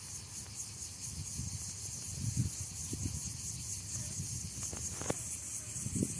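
Outdoor ambience: a steady high-pitched insect chorus, with irregular low rumbles on the microphone and a single click about five seconds in.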